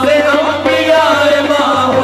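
Qawwali: a male lead voice singing an ornamented, bending line over sustained accompaniment, with tabla drumming.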